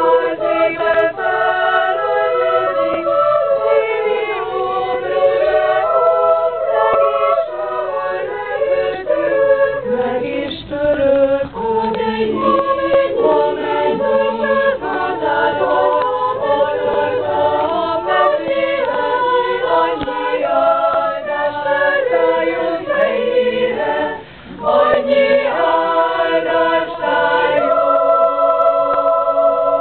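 Choir singing a cappella in several parts, with a short break about three-quarters of the way through and a long held chord near the end.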